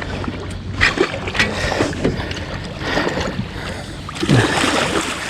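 Water splashing and sloshing against a small boat's hull, with short knocks, as a hooked fish is being landed by hand at the side.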